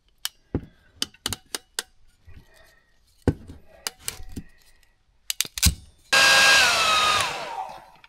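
Ratcheting wire crimper clicking sharply several times as ring terminals are crimped onto a wire. About six seconds in, a heat gun switches on and blows loudly, its whine falling in pitch as it fades near the end.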